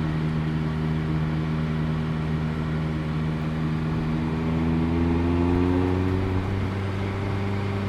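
Mazda ND2 Miata four-cylinder engine and exhaust droning at about 2,500 RPM under load, the pitch rising a little about three seconds in, peaking around the five-second mark, then settling.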